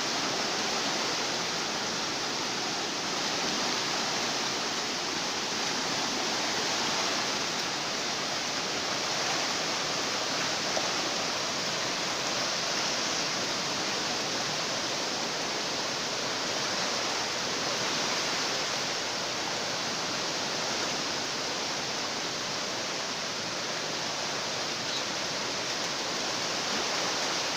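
Steady rush of floodwater from a flash flood, mixed with heavy rain: an unbroken, even hiss with no breaks.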